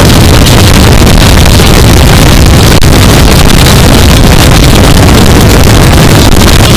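Steady, loud rush of wind buffeting the microphone, over the Yamaha R3's parallel-twin engine running at highway cruising speed.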